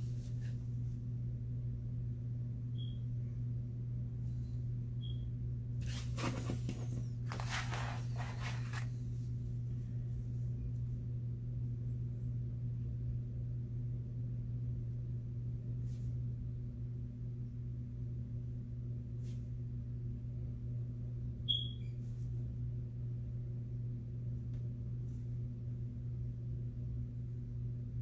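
Steady low hum of room noise. Paper slides and rustles on a desk for about three seconds, starting around six seconds in. A few short high chirps are heard, the loudest about three-quarters of the way through.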